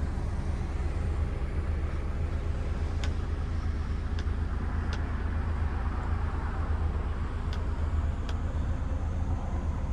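DAF XF106's PACCAR 460 hp Euro 6 diesel idling steadily, a low even hum heard from inside the cab. A few light clicks sound over it.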